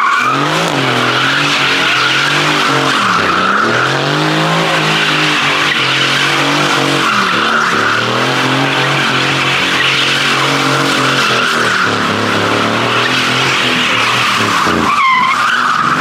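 Sports car doing smoky donuts: the engine is held at high revs, dipping briefly a few times, while the rear tyres squeal continuously.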